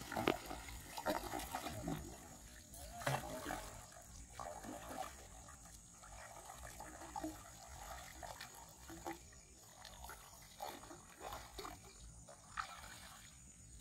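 A hooked fish splashing and thrashing at the water surface in irregular bursts as it is played on a fishing rod.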